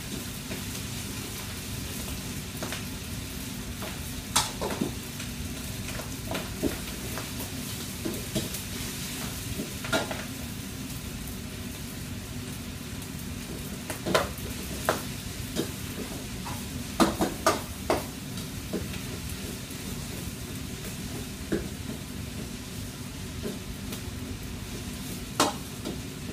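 Food sizzling in woks on a gas range under a steady low noise, with scattered sharp clanks of a metal spatula scraping and striking the wok as the food is stir-fried, most of them bunched about two-thirds of the way through.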